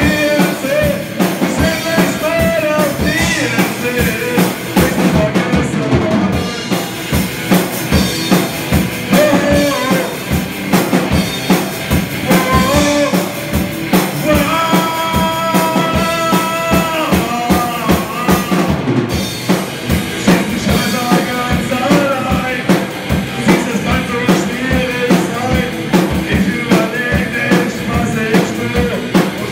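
A rock band playing live and loud: a Millenium drum kit keeping a steady, busy beat, an electric guitar, and a singer on the microphone.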